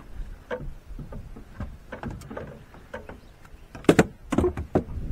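Light knocks and rattles of a freshly caught small catfish being handled on its line aboard a boat, with two sharp knocks about four seconds in.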